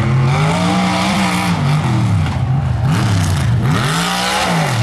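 Lifted mega truck's engine revving hard and dropping back again and again, its pitch rising and falling about four or five times as it takes the dirt jumps.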